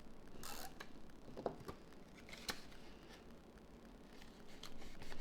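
Cardstock being handled and taped down: a short paper rustle about half a second in, then a few light clicks and taps and faint rustling as pieces are pressed into place.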